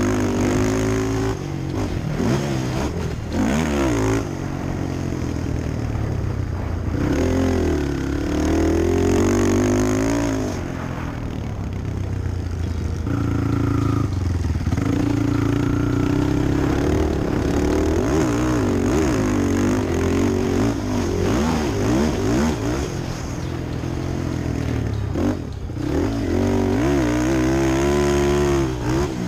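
Sport quad (ATV) engine being ridden around a dirt motocross track, revving up and down continuously, its pitch rising and falling with throttle and gear changes.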